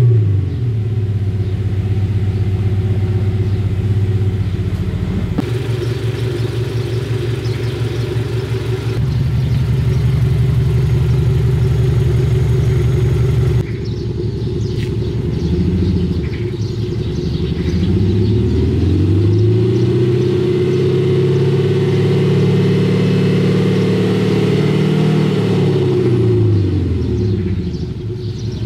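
Jeep Renegade engine starting, then idling through its Cupatec electronic valve exhaust, first heard inside the cabin. From behind the car, the engine is revved up at about the middle, held high for several seconds, then drops back to idle.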